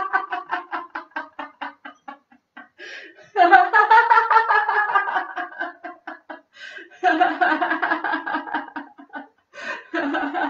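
A woman laughing in several bouts of rapid ha-ha pulses, each bout starting abruptly, the first trailing off then new ones about three and a half, seven and ten seconds in. It is deliberate laughter-yoga laughter, a mimed sneeze into the elbow turning into laughter.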